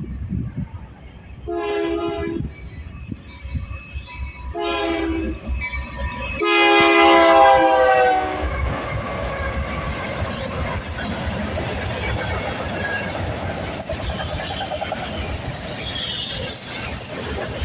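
Union Pacific GE AC4400CW freight locomotive sounding its air horn: two short chord blasts a few seconds apart, then a longer, louder one. The train then rolls past, with wheels clattering over the rail joints.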